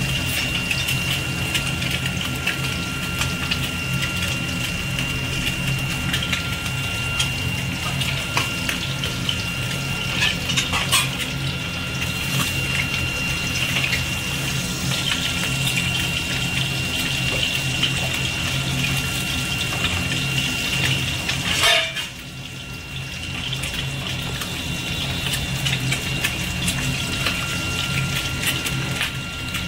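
Pieces of katla fish frying in hot oil in a kadai: a steady sizzle with many small crackles over a low steady hum. About 22 seconds in there is a brief louder noise, after which the sizzle is quieter for a moment.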